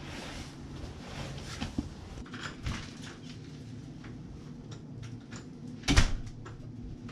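A house's front door being opened and pushed shut, with scattered footsteps and small knocks. The door closes with one sharp knock about six seconds in, the loudest sound.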